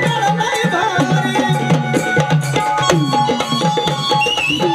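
Instrumental passage of a Marathi gavlan folk song: a hand drum plays a quick rhythm, its bass strokes bending down in pitch, under held melody notes.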